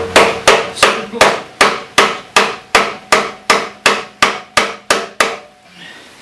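Hammer blows driving out a motorcycle's front wheel spindle: about fifteen sharp, evenly paced strikes, roughly three a second, with a slight metallic ring. They stop a little over five seconds in. The spindle is tighter than it ought to be.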